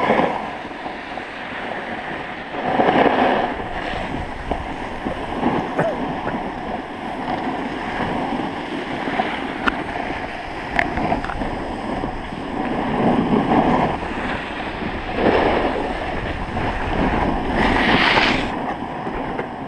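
Snowboard sliding and scraping over packed snow, with several louder scraping surges as the board's edge digs in to turn or brake. Wind rushes over the camera microphone throughout.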